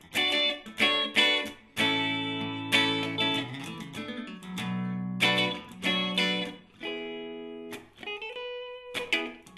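Guitar playing an instrumental break in a song: plucked and strummed chords struck one after another and left to ring, with a note rising in pitch near the end.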